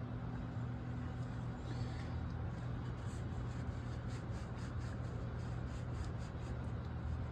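Steady low hum, with faint quick scratching ticks from about three seconds in.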